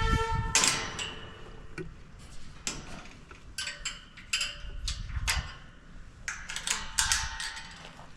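A short squeak at the start, then a string of irregular light clicks and knocks.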